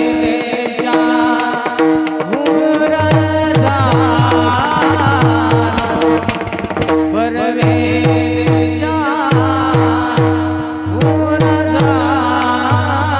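Woman singing a Marathi kirtan tune (chal) in a high voice with quick, wavering ornaments, over a steady held drone and a hand drum played in a steady rhythm with sliding bass strokes.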